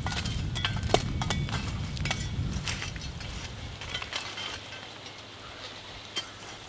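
Charcoal grill with a hand-turned rotating spit wheel: scattered sharp clicks and clinks over a low rumble that fades out about two and a half seconds in.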